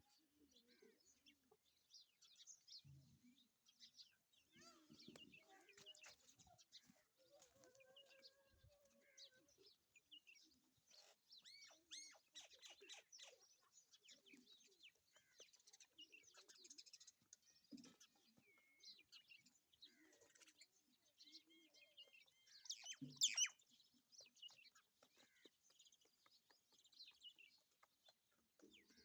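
Faint chirping and twittering of small birds, many short high calls overlapping, with one louder, sharper sound about three quarters of the way through.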